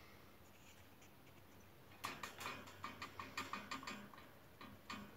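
Guinea pig close to the microphone making rapid light clicks, about five or six a second, starting about two seconds in.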